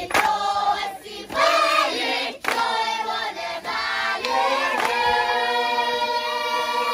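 A group of voices singing together, ending on a long held note, with a few sharp claps.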